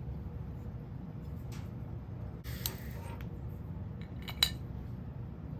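A few small metallic clicks and clinks of tools or hardware being handled on a workbench, the loudest about four seconds in, over a steady low hum.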